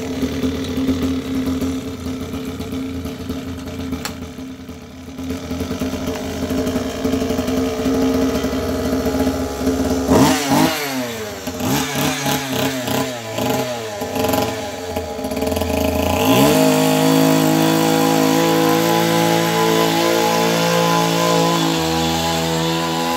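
Small two-stroke engine of a gas GoPed scooter idling. About ten seconds in it is revved up and down for several seconds. From about sixteen seconds in it holds steady at higher revs as the scooter rides off.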